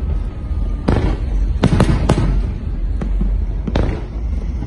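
Fireworks bursting: about five sharp bangs, three of them in quick succession around two seconds in and one more near the end, over a steady low rumble.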